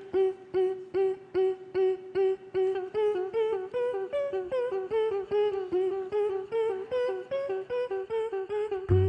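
Beatboxers' staccato vocal hum: short pitched notes repeated about two to three times a second, first on one held pitch, then stepping up and down into a melody. A loud, deep vocal bass comes in near the end.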